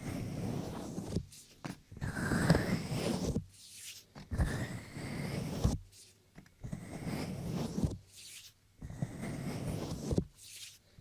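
Slow rubbing or brushing strokes right against a binaural microphone, about five of them, each a second or so long with short pauses between, and a few light clicks.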